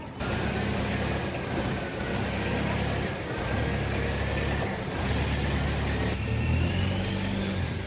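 A motor engine running steadily with a low hum under a wash of noise, and a faint high whine that rises slightly near the end.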